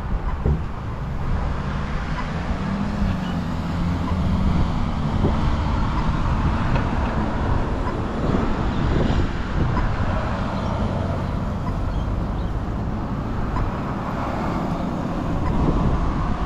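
Steady road and traffic noise: a continuous rumble with a low, wavering hum under it.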